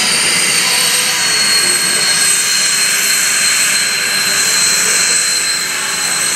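Jet turbine engine running steadily, a loud rushing noise with a high-pitched whine held at constant pitch.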